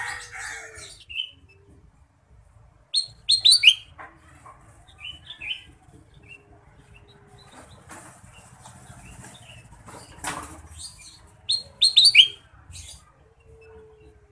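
Kutilang emas, a bulbul, calling in two short bursts of quick, sharp chirps, about three seconds in and again about twelve seconds in. A short whoosh comes just before the second burst.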